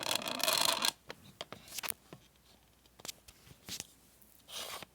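Rustling and clicking as objects are handled: a loud rustle in the first second, a few sharp clicks, then a short rustle near the end.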